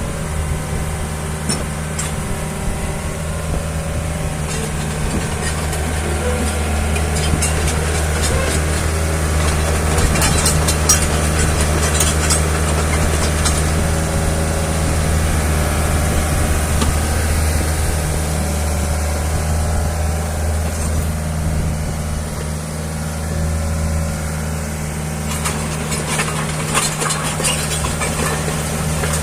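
Diesel engine of a 2008 Hyundai Robex 55-7 midi-excavator running steadily. Scattered metallic clicks and clanks come in about ten seconds in and again near the end.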